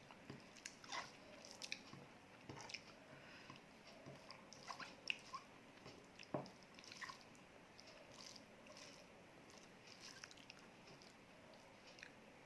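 Faint chewing and eating sounds of a person eating rice with egg curry: soft, scattered clicks and squishes, a few louder ones around the middle.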